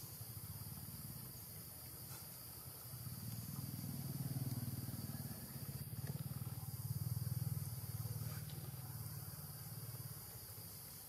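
Low rumble that swells and fades twice, over a steady high-pitched hiss of forest insects.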